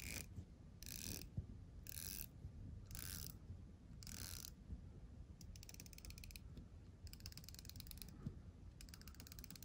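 Faint ratcheting clicks of a 120-click dive watch bezel being turned by hand. It comes first as four short bursts about a second apart, then as fast runs of rapid clicks in the second half.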